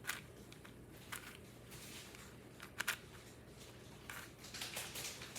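Plastic 4x4 speed cube being turned by hand: faint, irregular clicks and clacks as its layers snap round.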